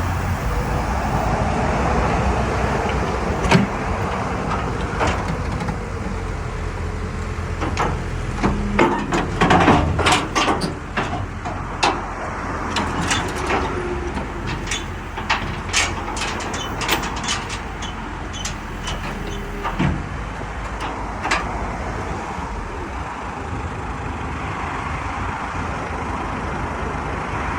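Heavy diesel engine running steadily while the steel ramps of a lowboy trailer are raised, with a series of sharp metallic clanks and knocks that thicken through the middle and stop some way before the end.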